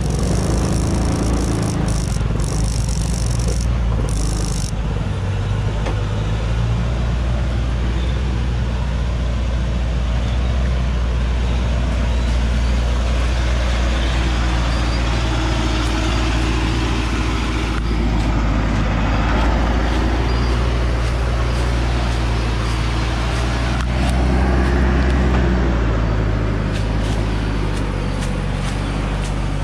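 Engine of a truck heavily loaded with acacia logs, running steadily as it moves slowly along a muddy dirt track, getting a little louder about 25 seconds in.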